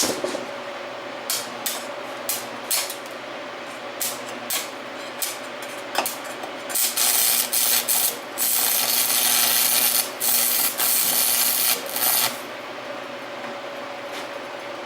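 Arc of a small 110-volt stick welder: several short crackling strikes, then a longer steady crackle and sizzle as a bead is laid for about five seconds past the middle. A steady hum runs underneath throughout.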